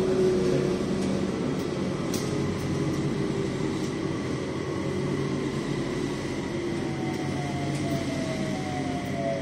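Interior running noise of an elevated light-rail car: a steady rumble and hum, with a motor whine that falls in pitch over the last few seconds.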